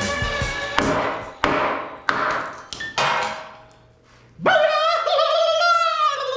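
Music cuts off, then come five sharp knocks, each with a short metallic ring, roughly half a second apart. After a brief pause, a loud, high, wavering voice-like cry starts and slides downward in pitch.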